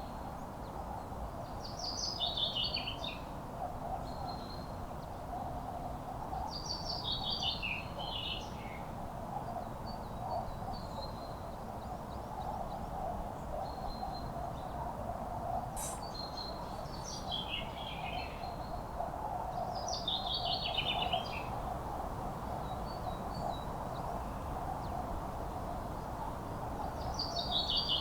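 A songbird repeating a short song phrase that falls in pitch, about six times, every few seconds, over a steady background noise.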